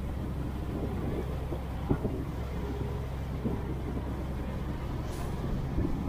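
Boat engine running steadily under way, with water rushing past the hull. There are a couple of short knocks about two seconds in and near the end, as the hull meets the waves.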